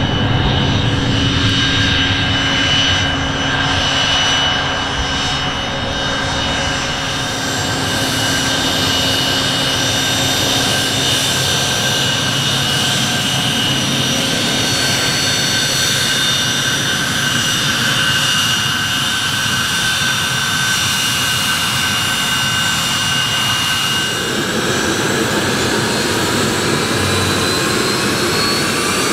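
Honeywell TFE731 turbofans of an IAI Astra SPX (Gulfstream G100) business jet running on the ground: a steady, loud whine of several tones over engine rush. Near the end the whine starts to rise in pitch.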